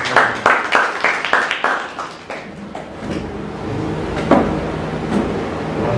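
A few people clapping, about three to four claps a second, fading out about two seconds in. A single sharp knock a little after four seconds in.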